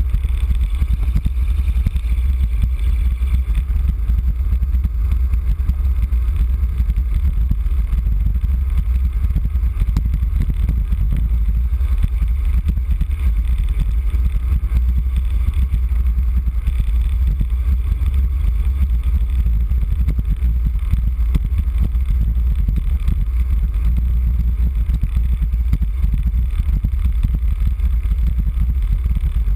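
Wind buffeting the microphone of a bike-mounted camera on a fast road-bike descent: a steady, loud low rumble.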